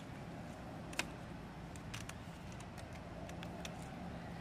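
Faint water splashes and drips as a baby macaque moves about in a shallow basin of water, with scattered light clicks and one sharper click about a second in.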